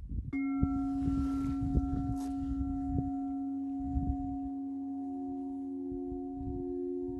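A singing bowl struck once, then ringing on in a long steady tone with several higher overtones; a second, slightly higher tone joins about five seconds in. Irregular low rumbling thumps sound underneath.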